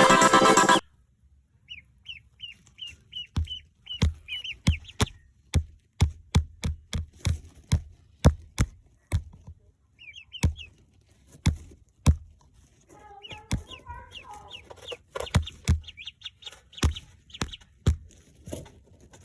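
Young poultry peeping in short, high, repeated chirps, over many sharp taps and knocks. A lower clucking chatter joins around two-thirds of the way through. Background music cuts off about a second in.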